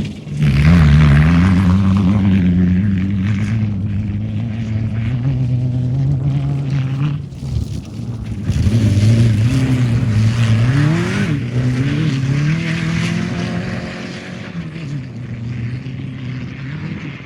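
Off-road race vehicle's engine running at high revs, its pitch climbing and dropping repeatedly as the throttle and gears change. It is loudest about a second in and fades toward the end.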